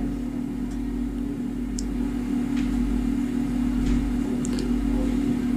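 A steady low electrical hum of room background noise, with a few faint short clicks scattered through it.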